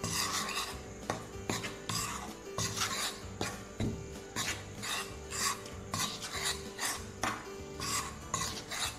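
A metal spoon scraping and stirring through dry flour against the bottom of a pan, in repeated strokes about one or two a second, as hot oil is worked into the flour for chakli dough.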